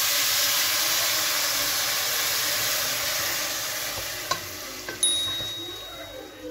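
Hot fried vegetables and bacon sizzling loudly in a pot as water is poured in, the hiss slowly dying down as the water cools the pan. A wooden spoon stirs, with two sharp knocks against the pot about four and five seconds in.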